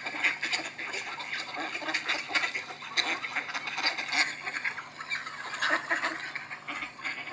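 A flock of ducks, mallards among them, quacking all together in many overlapping calls. It is a recording played back through the EE Hawk smartphone's bottom-facing loudspeaker, so it sounds thin, with little bass.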